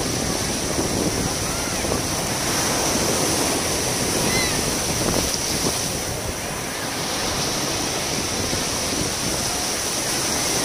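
Steady rush of water, an unbroken wash with no pauses, with a steady high-pitched drone over it.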